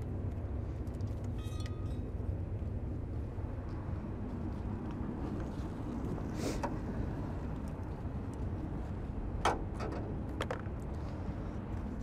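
Steady low outdoor rumble with a few light clicks and knocks, about six, nine and a half and ten and a half seconds in, as a battery charger and its cord are handled and placed in a truck's engine bay.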